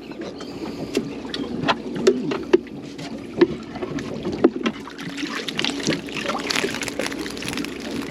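Water lapping and slapping against a small boat's hull, with scattered sharp knocks in the first few seconds and a busier patter of small splashes after that.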